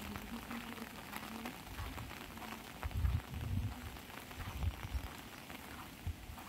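Light rain pattering on an umbrella: many small drop taps, with a few low thumps about three seconds in.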